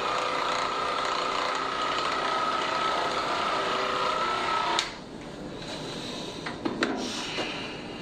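A small motorized device running steadily with a constant whine, cutting off abruptly about five seconds in; a few light clicks follow.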